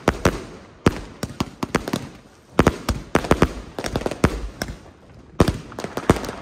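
Fireworks going off: a rapid series of sharp bangs in clusters, with brief lulls about two and a half and five seconds in.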